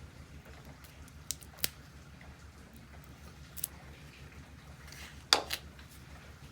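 A few light clicks and taps from handling a card deck and its small guidebook, with a louder double click about five seconds in, over a steady low hum.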